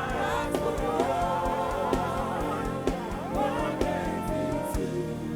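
Live gospel worship music: held, sustained singing over a band with keyboard chords and a steady kick drum beat.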